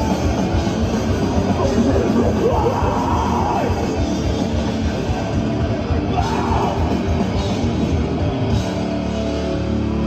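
Death metal band playing live: heavily distorted guitars over fast, dense drumming. Near the end the drums stop and the guitars are left ringing on a sustained low chord.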